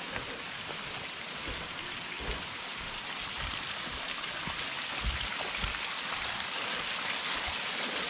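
Thin streams of a small waterfall falling off a sandstone rock overhang and splattering on the ground, a steady rain-like hiss that grows gradually louder.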